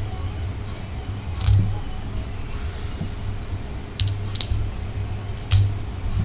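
Close-miked chewing of sautéed shrimp, with a low rumble of the jaw working and four sharp wet mouth clicks spread through.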